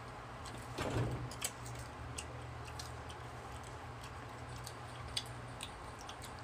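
Electric fan running with a steady low hum, under scattered soft clicks and lip smacks of people eating mango slices close to the microphone. One louder, brief noise about a second in.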